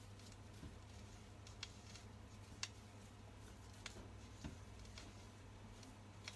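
Faint, sparse clicks and taps of a spoon against a stainless steel pot as a thick curry roux of spice, flour and oil is stirred and cooked out, over a low steady hum.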